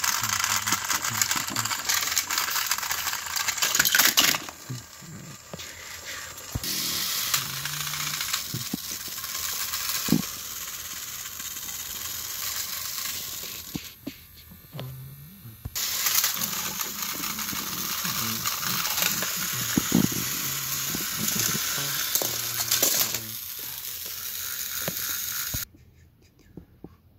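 Battery-powered motorized Thomas & Friends toy engines pushing against each other on plastic track: a steady whirring rattle of small gear motors and wheels, in several runs with short pauses between, cutting off abruptly near the end.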